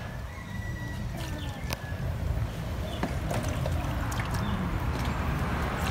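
Kava being mixed and strained by hand in a wooden kava bowl with a hibiscus-fibre strainer: water sloshing and trickling, louder in the second half, over a steady low rumble.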